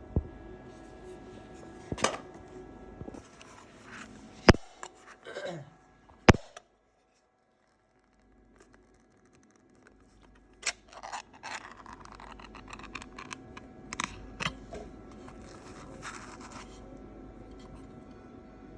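Hands handling small parts: scratching and rustling with scattered sharp clicks, two of them loud, about four and a half and six seconds in, over a faint steady hum. The sound drops out almost completely for about three seconds in the middle.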